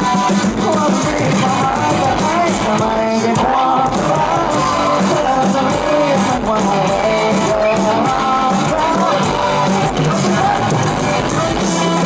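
Live rock band playing through the stage PA: a male lead singer sings a wavering melody over electric guitars, loud and steady.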